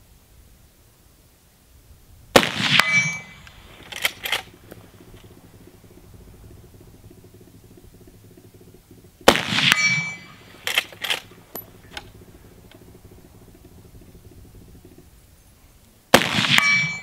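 Three rifle shots from a .38-55, about seven seconds apart, each with a short echoing tail. A second or so after each shot come two or three short metallic clicks.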